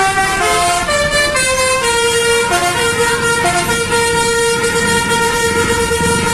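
Indonesian bus 'basuri' telolet horn playing a melody: a tune of short stepped notes, then one long held note from about three and a half seconds in.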